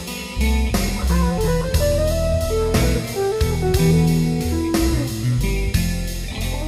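Instrumental passage of a rock song: a guitar plays a melody over bass and a steady drum beat.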